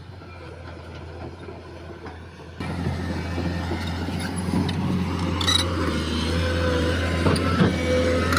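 Liugong excavator's diesel engine running steadily while travelling, with metallic clanks and squeals from its undercarriage. The sound gets suddenly louder about two and a half seconds in.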